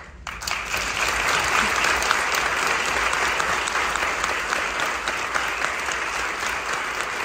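Audience applauding. The clapping breaks out sharply just after the start and then holds steady.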